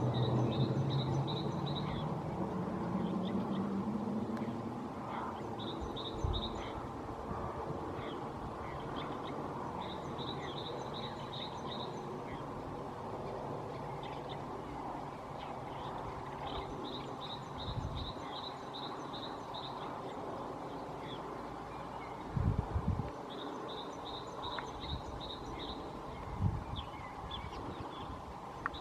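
Outdoor birdsong: a short, fast, high-pitched trill repeats about every five or six seconds over a steady background hum. A low engine sound fades away in the first few seconds, and there are a few dull thumps near the middle and end.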